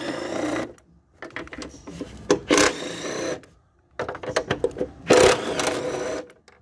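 A ratchet and socket loosening the 10mm bolts that hold down a Ford Fiesta's battery tray: rapid metallic clicking in three bursts with short pauses between.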